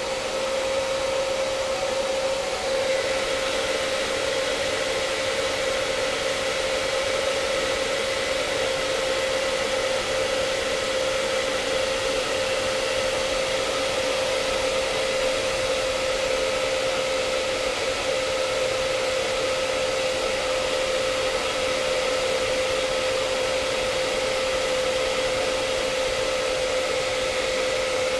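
Handheld hot-air blower running steadily, a constant motor whine over the hiss of rushing air, shrinking heat-shrink tubing onto a Lightning cable.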